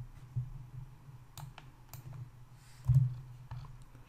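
Scattered sharp clicks of a computer mouse and keyboard being worked, a few spaced seconds apart, over a steady low hum, with a dull thump just before 3 s.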